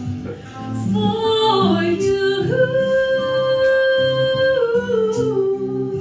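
A girl singing solo into a microphone: a quick descending run, then a long held note that steps down to a lower held note near the end. Acoustic guitar accompanies her.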